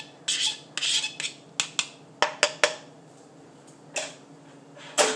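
Kitchen clatter of dishes being handled: a run of light clicks and knocks, then a louder clunk of a ceramic plate set down, ringing briefly, near the end.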